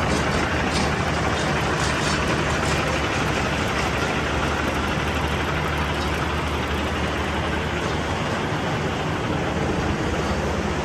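Freightliner Cascadia 125 semi-truck's diesel engine idling steadily, a low even hum under a steady hiss.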